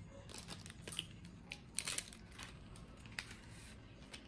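A paper tea-bag sachet crinkling and tearing open, with scattered light clicks and rustles from handling the tea box; a brief denser rustle about two seconds in.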